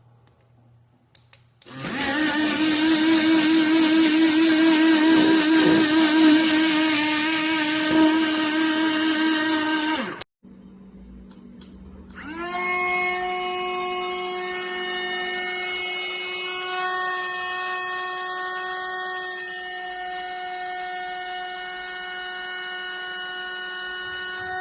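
Portable rechargeable mini blender with six blades running: a loud motor whine, its pitch wavering as the blades churn, for about eight seconds before it stops suddenly. About two seconds later it starts again, rising quickly to a steady whine that holds to the end.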